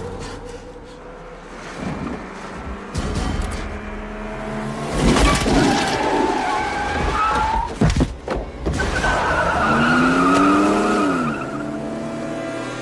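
Action-film chase soundtrack: a car's tyres squeal and skid on a snowy road, with sliding pitched squeals about halfway and again near the end, a few sharp bangs in between, all over background music.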